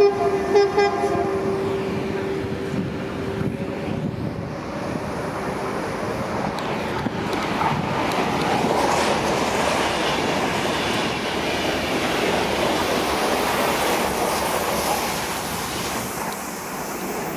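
A train horn sounds briefly, then a Renfe regional electric train rumbles past with its wheels clattering on the rails. The noise peaks in the middle and eases near the end.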